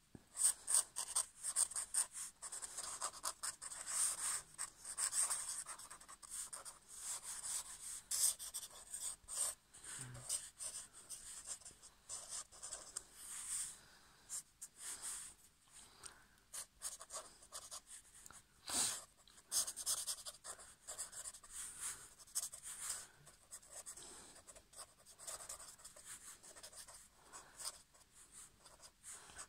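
Black marker pen scratching across paper in quick, irregular scribbling and hatching strokes, with one longer, louder stroke about two-thirds of the way through.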